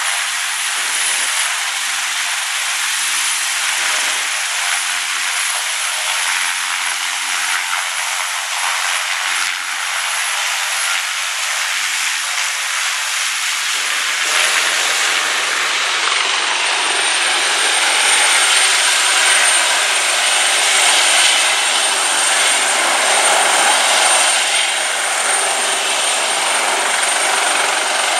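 Airbus H225M helicopters' twin turboshaft engines and rotors running at takeoff power: a loud, steady rush with a high turbine whine, which drops a little in pitch about halfway through.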